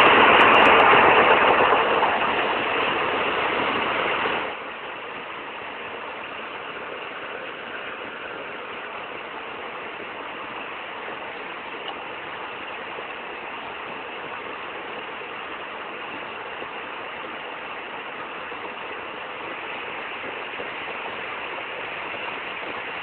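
Steady engine noise aboard a boat, an even rushing drone with no clear tone. It is louder for about the first four and a half seconds, then drops suddenly to a lower, steady level.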